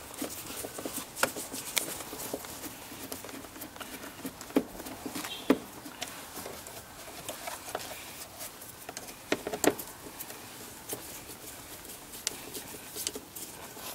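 Torx screwdriver backing long screws out of a plastic engine air filter housing: irregular small clicks and scrapes of the bit and screws, a little louder a few times.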